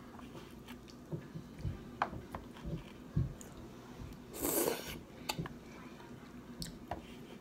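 A person eating pho. Rice noodles are slurped off chopsticks in one loud, noisy slurp about four and a half seconds in, the loudest sound. Before it come chewing and mouth sounds with soft thumps, and a few light clicks are scattered through.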